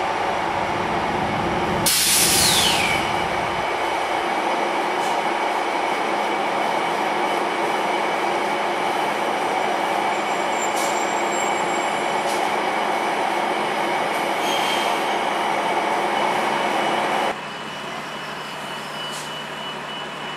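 Sounder commuter train coming to a halt beside the platform. A low rumble fades out in the first few seconds, and about two seconds in a loud burst of air hiss comes with a squeal that falls in pitch. Then the standing train gives a steady hum and hiss, which drops suddenly in level near the end.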